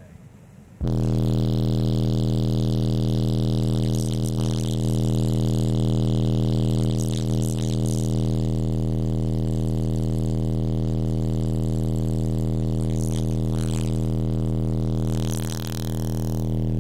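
Two Timpano TPT-3500 subwoofers on a JP43 amplifier playing a sustained deep bass test tone at about 38 Hz inside the car, pushing about 147 dB on the SPL meter. The tone cuts in suddenly about a second in and holds steady, with some rattling. It dips and wavers briefly near the end.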